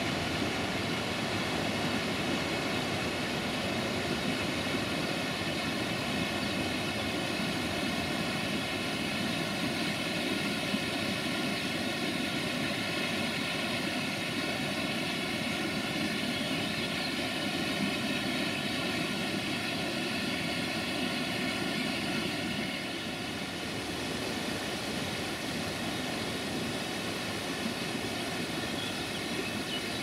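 Steady rushing of a waterfall, dropping slightly in level a little over two-thirds of the way through.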